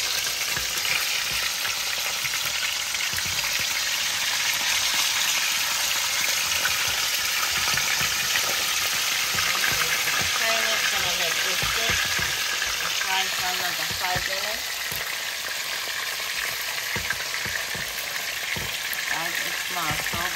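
Whole seasoned red snapper frying in hot oil: a steady, dense crackling sizzle.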